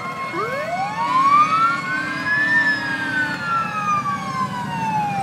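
Several fire truck sirens wailing at once, the loudest rising slowly for about two seconds and then falling, over a low engine rumble.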